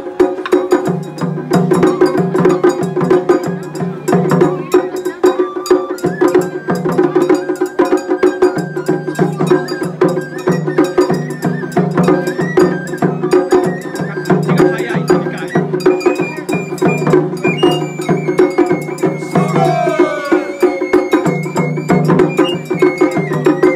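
Japanese festival ohayashi music from a float: taiko drums and a small metal gong struck in a fast, continuous rhythm, with a high flute melody above.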